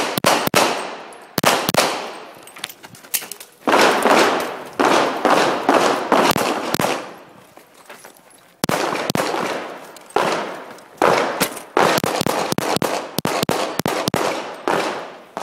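Pistol shots fired in fast strings of several rounds with short pauses between, each crack trailing off in an echo.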